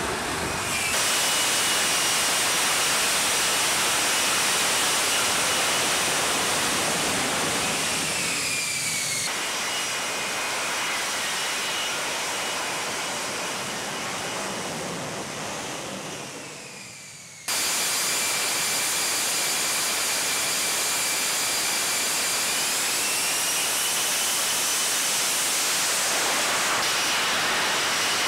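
F-35B jet running at high power as it hovers for vertical landing: a loud jet rush with a high whine that slides down in pitch twice. The sound changes abruptly a few times, once jumping back to full level after fading.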